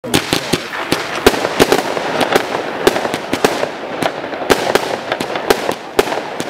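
Zeus Avenger firework barrage firing: a dense crackle with sharp cracks about three or four times a second, starting suddenly.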